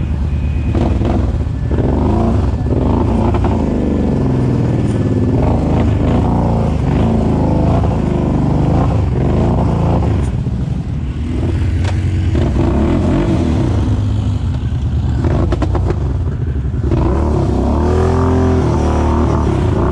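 Kawasaki KFX 700 ATV's V-twin engine revving up and down over and over as the quad works through thick, peanut-butter-like mud. There is a brief clatter about fifteen seconds in.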